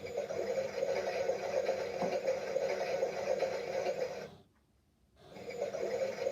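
Small electric motor of a toy washing machine humming steadily as it runs its drum. The hum fades out to near silence for about a second partway through, then comes back.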